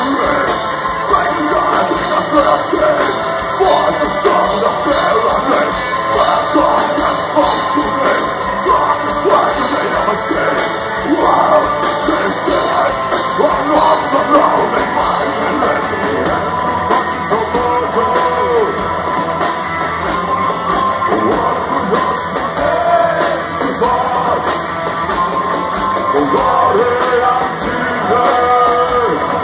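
Gothic metal band playing live: distorted electric guitars, drums and keyboards under a singer's vocals, sung and shouted, heard from within the crowd.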